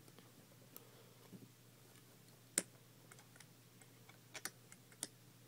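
Faint, scattered clicks of plastic Lego pieces being handled and fitted together, with one sharper click about halfway through and a few more near the end.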